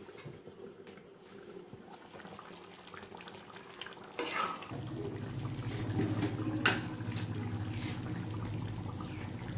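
Mutton curry bubbling on a gas stove, with a brief clatter about four seconds in. After that it bubbles louder as a ladle stirs it in a cast-iron pan, with one sharp knock of the ladle a little past the middle.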